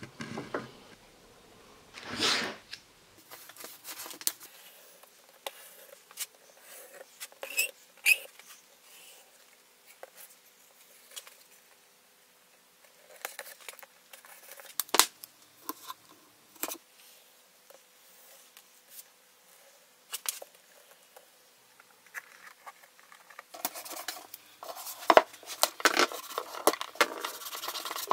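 Cardboard mock-up being handled and taped together with masking tape: scattered taps, crinkles and short tape-tearing rustles, busiest near the end.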